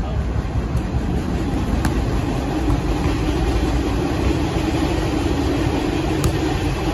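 Steady low rumble of a nearby vehicle engine, with a hum that settles in a few seconds in; a couple of faint sharp clicks stand out.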